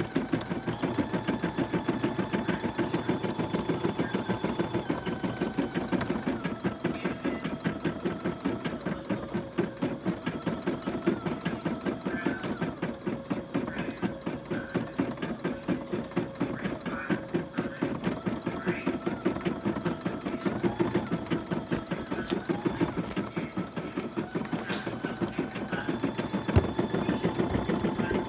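Computerized embroidery machine stitching at speed: a fast, even needle rhythm with a motor whine that steps up and down in pitch every few seconds. There is one sharp click near the end.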